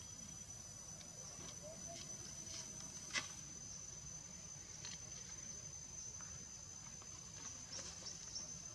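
Steady high insect drone with scattered small clicks and taps over it, one sharper click about three seconds in.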